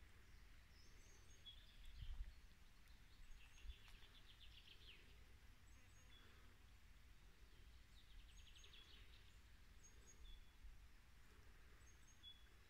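Quiet woodland: scattered faint high bird chirps, and twice a rapid trill, over a steady low rumble. There is a soft low thump about two seconds in.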